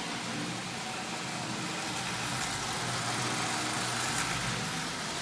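Lionel 8902 toy steam locomotive's electric motor and wheels running steadily on the track, a constant mechanical hum that swells slightly in the middle. It is running smoothly on AC through its newly fitted Marx contactor.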